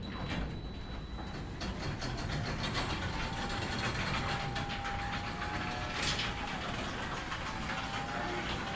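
Ryobi belt-drive garage door opener running on a test cycle just after a belt replacement, moving the door along its rail with a steady mechanical rumble and rapid clicking clatter. A faint whine runs through the middle.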